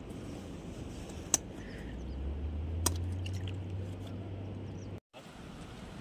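Two sharp clicks about a second and a half apart: a life jacket's plastic buckles snapping shut, over a low steady rumble. The sound drops out briefly near the end.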